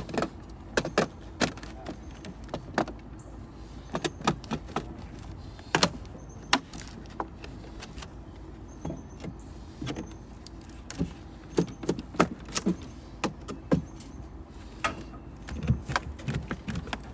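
Pry work on sheet-metal trim: irregular sharp metallic clinks, taps and scrapes, over a steady low hum.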